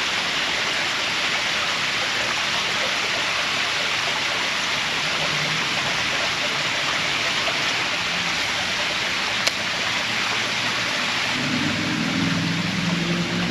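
Shallow stream water running steadily over a riffle, a constant even rush.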